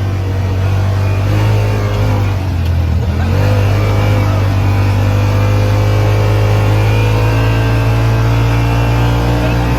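A motor vehicle's engine running hard under load with a steady, loud drone. About three seconds in, its pitch dips briefly and then climbs back.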